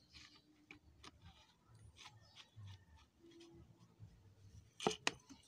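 Quiet handling noise: faint scattered taps and ticks, with two sharp clicks close together a little before the end.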